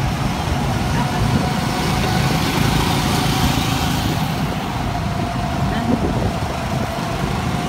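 Go-kart engines running as karts drive around the track, a steady motor drone with a low rumble.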